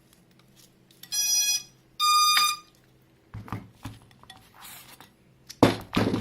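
Quadcopter ESCs beeping through the brushless motors as the LiPo battery connects through the XT60: two electronic beeps, the second higher and steadier, about a second apart. Then a few light knocks, and a louder sharp knock near the end.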